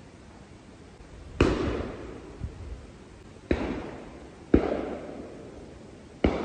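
Four shotgun shots from the guns on a driven game shoot, at irregular intervals of one to two seconds. Each is a sharp report with a trailing echo.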